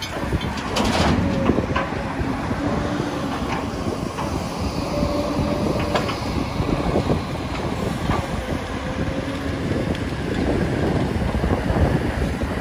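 Building demolition: heavy machinery working the wreckage, with continual cracking and crunching of breaking debris over a low rumble, and a few short whining tones.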